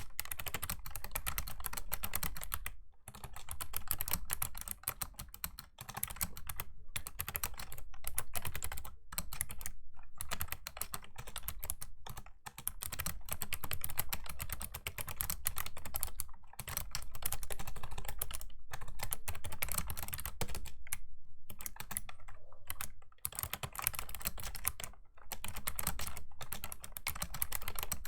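Fast typing on a Razer Ornata Chroma V2's clicky mecha-membrane keys: rapid runs of keystroke clicks, broken by brief pauses every few seconds.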